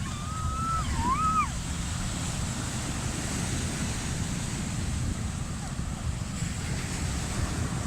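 Ocean surf washing steadily, with wind rumbling on the microphone. A high voice calls out briefly, twice, in the first second and a half.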